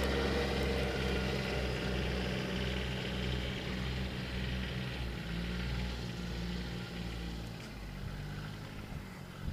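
John Deere Gator utility vehicle's engine running at low speed, a steady low hum that slowly fades as the vehicle drives away.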